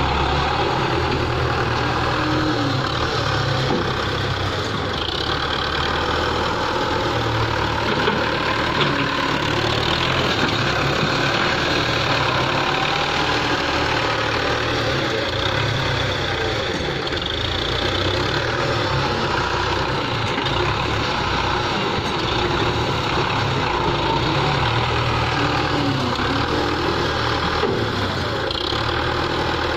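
Belarus 510 tractor's diesel engine running steadily while it works its front loader.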